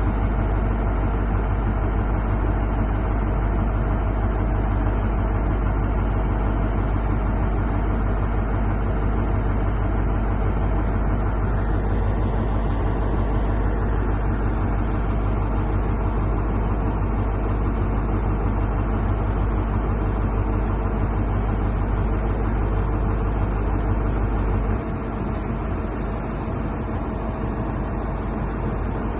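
Diesel train engine running steadily at a constant pitch with a strong low rumble. It eases slightly about 25 seconds in.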